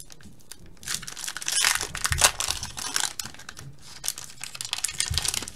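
Foil wrapper of a football trading card pack crinkling and crackling irregularly as it is handled and torn open.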